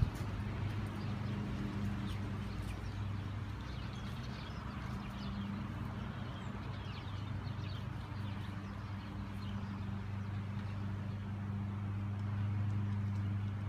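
A steady low motor hum, with faint bird chirps over it.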